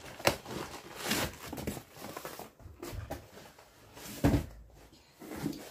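Handling noise of someone moving about on a floor and reaching for a cardboard box: rustling with scattered light knocks, and a heavier thump about four seconds in.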